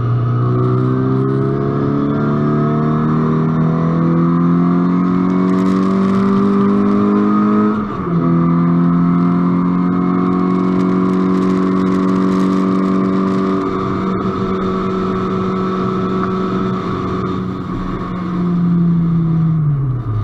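Race-track car engine heard from onboard, pulling hard with the revs climbing steadily, then a quick upshift about eight seconds in. It keeps accelerating at higher speed before the revs fall away near the end as the driver comes off the throttle.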